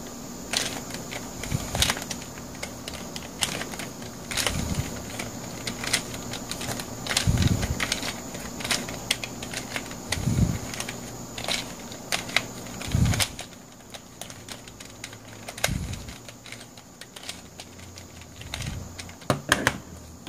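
Plastic clicking and clacking of a Pyrastar twisty puzzle as its pieces are turned by hand, in an irregular patter, with a few duller knocks and a quick run of clicks near the end.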